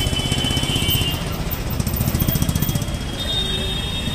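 A small engine running close by with a rapid, even low chugging, amid busy market-street noise; a thin high tone comes and goes over it.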